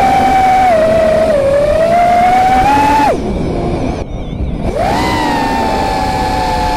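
An FPV miniquad's RCX 2206 2400kv brushless motors and propellers whine in flight, the pitch rising and dipping with the throttle. About three seconds in the throttle is chopped, giving a brief lull, and the whine spools back up a second and a half later.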